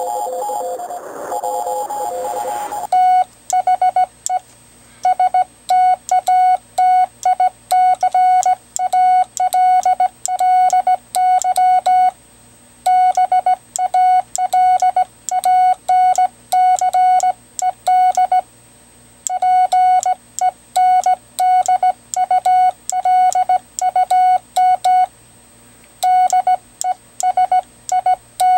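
Morse code sent by hand on a semi-automatic 'bug' key (the GoBug balanced-pendulum bug): a steady sidetone beep keyed on and off in dots and dashes, each element starting with a sharp click, spelling out plain text ('...ULUM DESIGN'). For about the first three seconds a different two-pitched beeping pattern plays instead.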